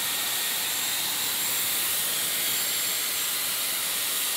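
Dyson Airwrap hair styler running with its curling barrel, blowing a steady rush of air with a faint high whine from its motor.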